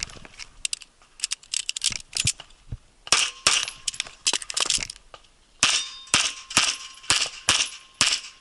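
Pistol shots fired in quick strings of about two to three a second, starting about three seconds in with a brief pause in the middle, at an IPSC Classic division pistol loaded to minor power factor. Before the shooting, softer clicks and knocks as the pistol is taken up from the table.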